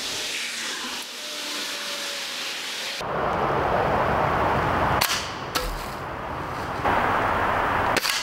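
Stoeger S4000-E .22 break-barrel pellet rifle firing: a sharp shot about five seconds in and another near the end, over a steady rushing outdoor background.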